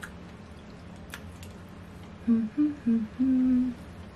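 A woman humming a quick run of four short closed-mouth notes about two seconds in, the last note held longest. Before that come a couple of light clicks of chopsticks against a ceramic bowl.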